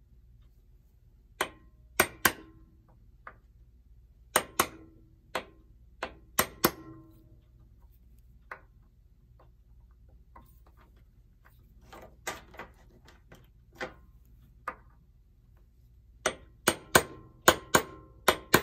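Hammer tapping a nail set against the metal case of a Telechron clock motor rotor, punching a guide dimple for a drill bit. Sharp taps in uneven groups, each with a short ring, ending in a quicker run of harder taps.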